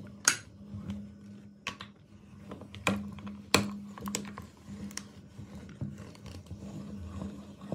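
Meat grinder crunching chocolate umbrella candies and their plastic hook handles: irregular sharp cracks and clicks, about half a dozen, over a low steady hum.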